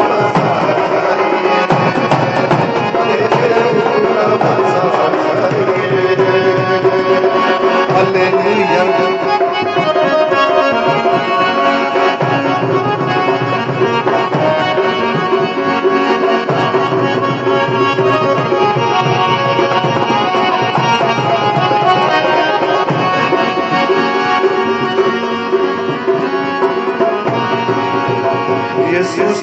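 Instrumental interlude of a Hindi Christian worship song: hand-drum rhythm under a sustained melody instrument, with no singing.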